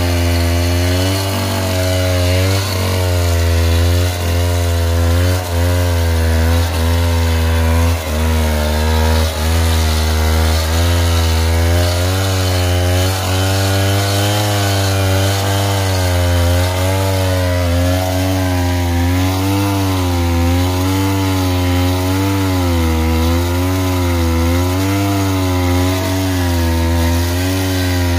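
Petrol chainsaw running hard as it cuts lengthwise along a squared log, its engine note wavering up and down as the bar bites and eases in the wood, with a few brief dips.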